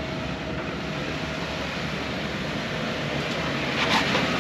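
Jeep Wrangler Rubicon crawling slowly over slickrock toward the microphone, its engine running steadily and growing a little louder as it nears, with a short burst of noise about four seconds in.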